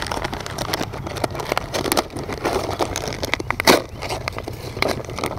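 Clear plastic bait bags crinkling and rustling as they are handled, with many small crackles, over a low steady rumble.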